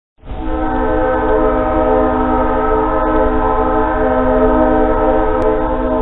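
Distant train horn sounding one long, steady blast, a chord of several tones held without a break, over a low rumble. It starts a moment in.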